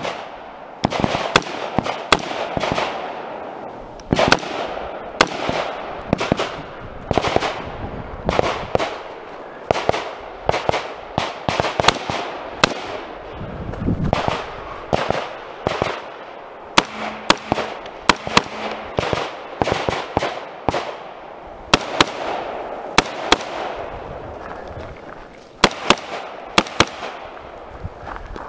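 AR-style rifle firing dozens of shots in quick strings, with gaps of a second or two between strings, each shot sharp with a short echo.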